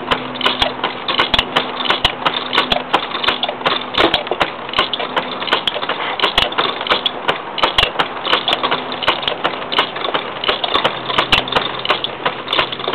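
Wood being turned on a homemade wooden treadle lathe: a hand-held gouge scraping and cutting into the spinning wood, a rough continuous scrape packed with rapid irregular clicks and knocks, over a faint low hum.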